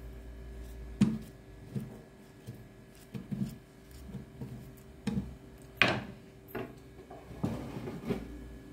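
Irregular knocks and taps of a knife cutting a banana on a wooden cutting board, with banana pieces put into a plastic blender jar, over a faint steady hum.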